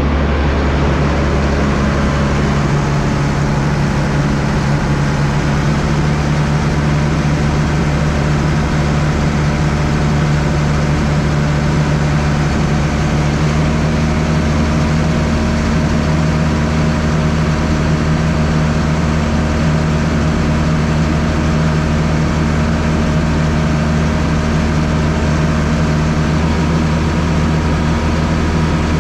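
Tractor's diesel engine running steadily under load, heard from inside the cab as a constant low drone with a steady hum.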